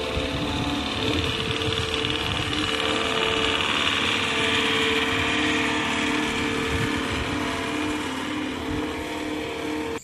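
Compact articulated wheel loader's diesel engine running steadily as the machine drives, with a steady whine held over the engine noise.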